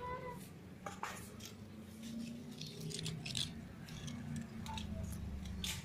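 Leaves and twigs brushing against a handheld phone, heard as short scattered rustles and clicks over a low background hum.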